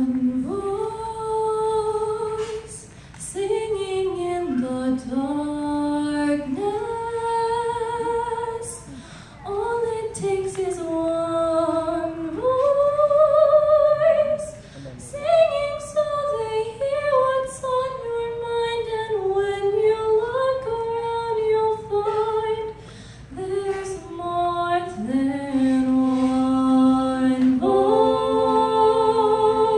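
Solo voice singing an unaccompanied melody into a microphone, with held notes and slides between pitches. Near the end other voices join in, one holding a steady low note beneath the melody in a cappella harmony.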